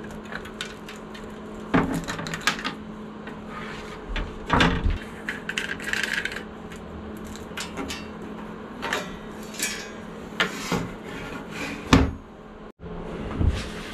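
Handling sounds as switches and gauges are worked out of a brass instrument panel and set down on a wooden table: scattered clicks, knocks and small rattles, with a few louder knocks.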